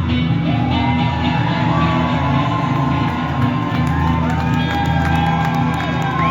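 Live band music with a steady bass line and held, gliding voices, while the audience shouts and whoops.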